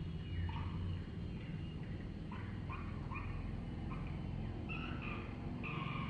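Swiftlet chirping: a run of short twittering calls, a few a second, over a low rumble of wind on the microphone.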